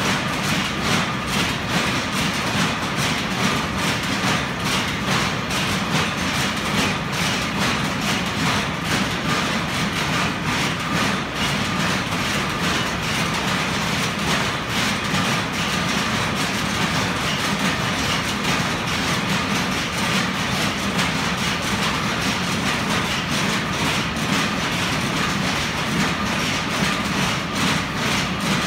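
Many power looms running together in a weave room: a loud, steady, rapid mechanical clatter with no let-up.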